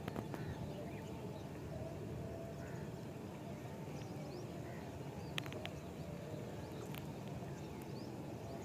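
Outdoor ambience: a steady low rumble with faint, scattered bird chirps. A few sharp clicks come about five and a half seconds in and again at seven seconds.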